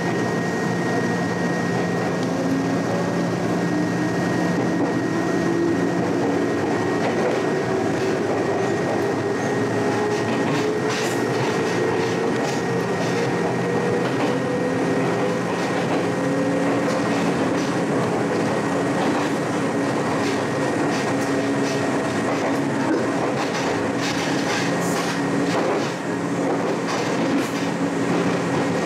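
Electric commuter train running, heard from inside the leading car: the motor whine climbs slowly in pitch as the train picks up speed, then holds steady. Wheels click over rail joints through the second half.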